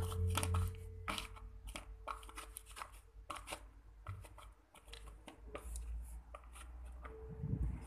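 Hand handling crumbly white lumps in a plastic bowl, giving irregular crackling and clicking over a low rumble.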